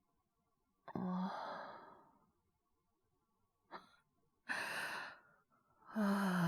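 A man's heavy sighs and breaths: a drawn-out sigh about a second in, a short catch of breath near four seconds, a breathy exhale around five seconds and a louder sigh near the end. Acted as a character worn down by fever and a cough.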